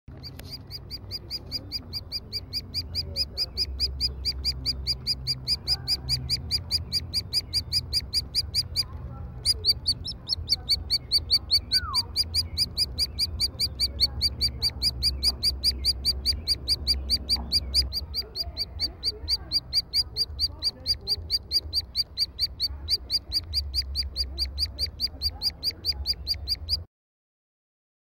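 Woodpecker nestling in its tree-cavity nest giving a steady stream of short, high begging calls, about four or five a second, calling for food. The calls pause briefly about nine seconds in, then carry on until they cut off near the end.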